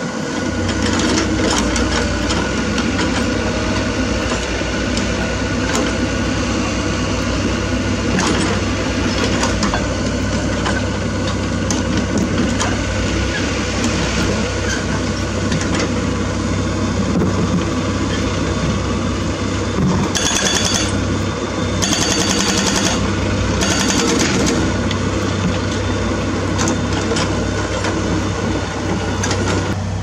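Everdigm EHB06 hydraulic breaker on a Komatsu PC78US mini excavator hammering rock: a rapid, steady rattle of blows over the excavator's engine running. Three short bursts of high-pitched noise come about two-thirds of the way through.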